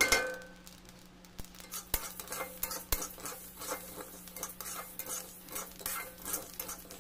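Metal spatula stirring and scraping dry rice grains around a metal wok, a rapid run of gritty scrapes and clicks as the rice is dry-roasted. A loud ringing clank of metal on metal comes right at the start.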